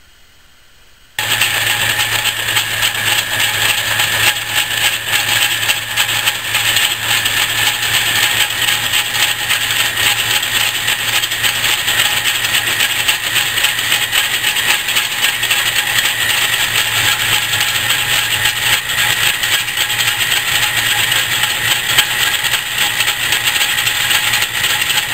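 Metal lathe running under power while its tool cuts a steel gear blank: a steady motor-and-spindle hum with continuous cutting hiss, starting suddenly about a second in.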